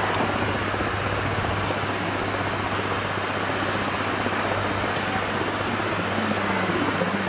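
River water rushing steadily over rocks in shallow rapids, an even noise with no breaks.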